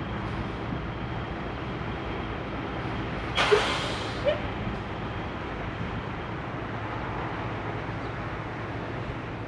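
Heavy diesel truck engine idling steadily, with a short, sharp hiss of air from the truck's air system about three and a half seconds in.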